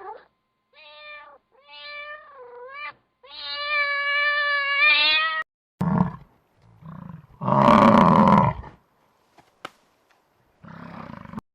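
A cat meowing three times, the third meow long and rising in pitch at its end. It is followed by a louder, rough, noisy animal call.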